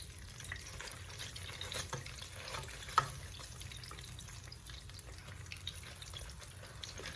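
Chicken pieces deep-frying in a basket in a deep fryer with oil set to 400 degrees, the chicken nearly done: a steady sizzle full of small crackles and pops, with one sharp click about three seconds in.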